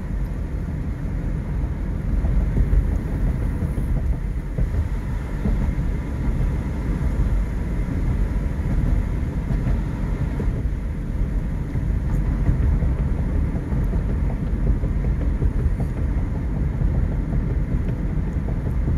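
Steady road and engine noise heard inside the cabin of a moving car, mostly a low, even rumble.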